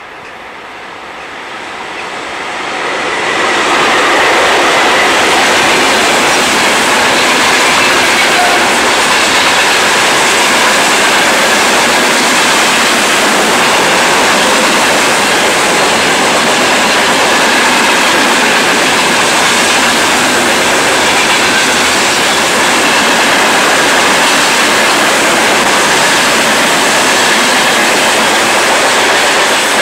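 Heavy freight train of tank wagons rolling past close by: steel wheels on the rails make a loud, steady rolling noise. The noise builds over the first four seconds as the train comes alongside, then holds level.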